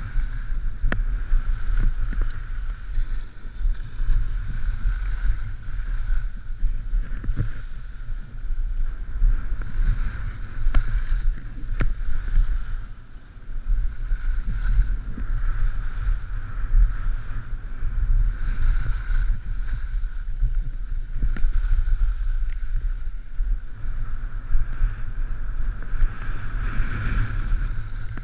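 Wind rushing over a skier's point-of-view camera microphone during a downhill run, a steady low rumble, with the scrape of skis over cut-up piste snow. It eases off briefly about 13 seconds in.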